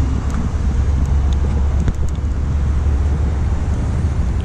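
Steady low rumble of wind buffeting the microphone, mixed with traffic noise.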